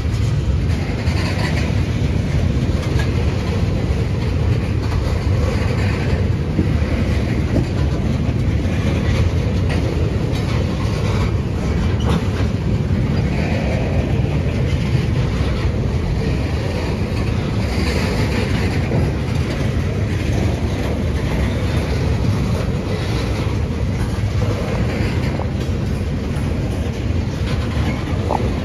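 Tank cars of a CSX ethanol freight train rolling past: a steady low rumble of steel wheels on the rails, with recurring clatter from the wheels and couplers.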